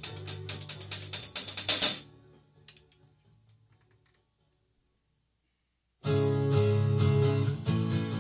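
Pearl drum kit played along with a backing track, ending on a loud cymbal crash about two seconds in. Near silence follows for about four seconds, then another backing track with strummed guitar starts abruptly.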